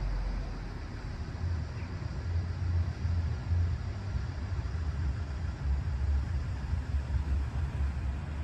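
Wind buffeting the microphone: an uneven, gusting low rumble with a faint hiss behind it.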